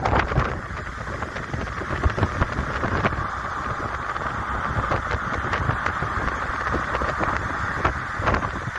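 Road and wind noise from a car driving along, a steady rumble and rush with scattered short knocks and bumps.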